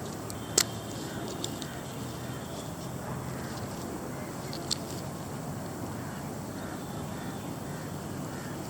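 Three short, sharp clicks, the loudest just over half a second in, over a steady background noise.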